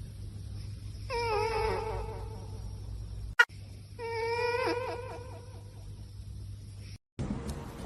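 A cat yowling twice: two long, wavering, drawn-out calls about three seconds apart, the second breaking up into short stutters at its end. A sharp click falls between the two calls.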